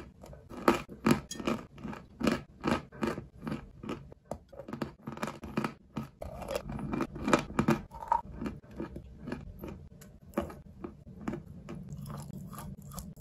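A mouthful of chalk being chewed close up: a steady run of crisp crunches, about two or three a second, which grow softer near the end.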